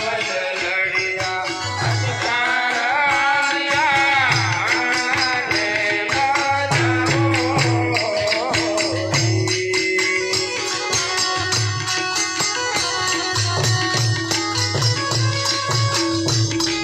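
Folk music: a man singing over a steady drum beat and rapid jingling percussion. The voice drops out about halfway through, leaving the drum and jingles playing.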